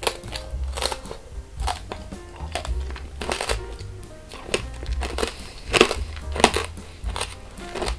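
Close-miked chewing of tanghulu, strawberries in a hard sugar-candy shell, with repeated crisp crunches of the glassy coating breaking between the teeth. Background music plays underneath.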